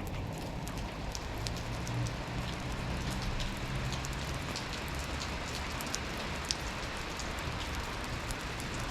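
Steady rain falling, an even hiss with many individual drops ticking sharply at irregular moments.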